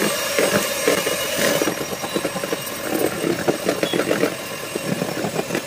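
Electric mixer running steadily, beating cake batter in a bowl, with quick irregular clicks over the motor's hum.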